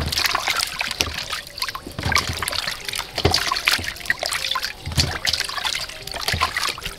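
Peeled green mangoes being rubbed and washed by hand in a stainless steel bowl of water: irregular splashing, with water dripping and trickling off the fruit.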